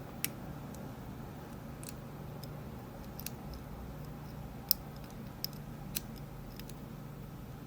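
Small, sharp, irregular clicks of a lock pick working the pins of a Rav Bariach LocXis pin-in-pin euro cylinder, with one louder click near the middle, over a faint steady low hum.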